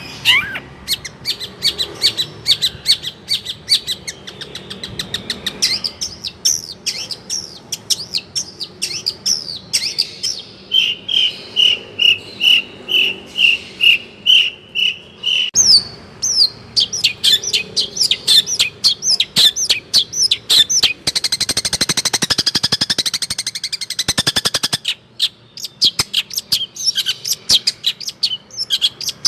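Long-tailed shrike (cendet) singing in full, rapid song: a quick string of sharp chirps and whistles, with a run of evenly repeated notes at about five a second in the middle and a dense, buzzy chatter a little past two-thirds through.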